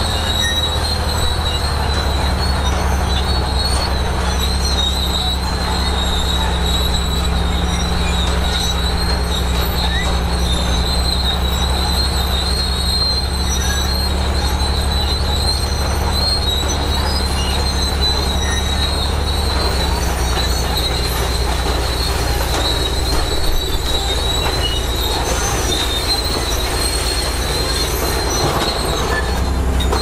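Bulldozer's diesel engine running steadily under a constant high squeal from its steel tracks.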